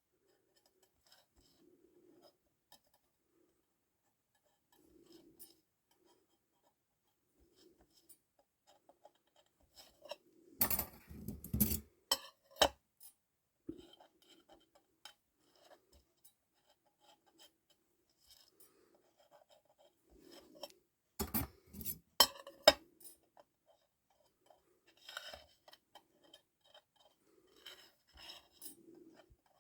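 Motorcycle clutch plates handled on a sheet of glass and tested with a feeler gauge: scattered light metal-on-glass clinks and small scrapes, with two louder bouts of clattering about 11 and 22 seconds in. The plates are being checked for warpage.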